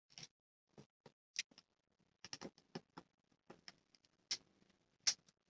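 Faint, irregular small clicks and taps from a Planet Eclipse CF20 paintball magazine's parts being handled and fitted back together during reassembly, a small cluster in the middle and the loudest click near the end.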